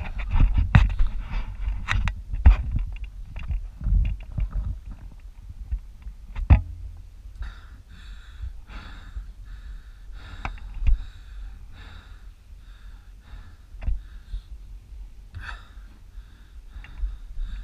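Wind buffeting an action-camera microphone: gusty low rumble with irregular thumps, heaviest in the first half. After a few seconds, soft rhythmic puffs of hiss come through under it.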